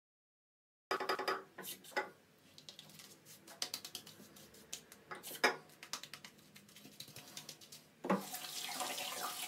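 Small clicks and knocks of handling at a bathroom sink. About eight seconds in, a tap starts running with a steady hiss.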